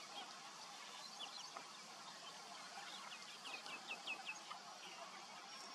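Faint bird calls over a steady outdoor hiss: scattered short chirps, with a quick run of about six short notes a little past halfway.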